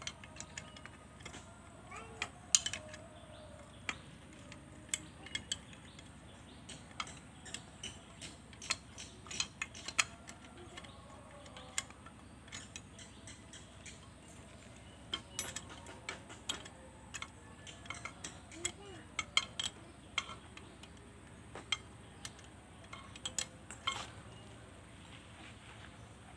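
Scattered light metallic clicks and clinks at irregular intervals, with faint voices in the background.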